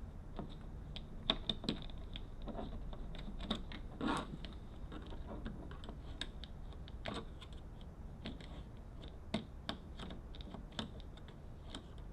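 Irregular light clicks and taps of a screwdriver and hands working at a Jeep door panel's plastic trim.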